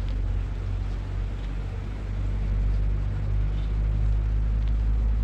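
Steady low engine rumble, like a vehicle running, growing a little louder about halfway through.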